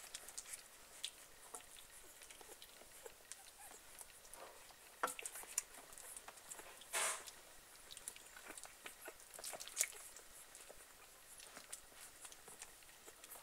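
Young puppies suckling from their mother, with many quick, faint wet smacks and clicks. A short louder noise comes about seven seconds in.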